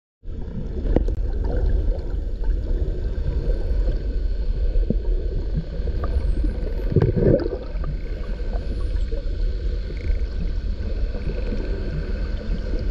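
Underwater sound: a steady low rumble of water against the camera housing, with a few faint high whistles of bottlenose dolphins gliding down and up, and scattered clicks. A brief louder low rush about seven seconds in.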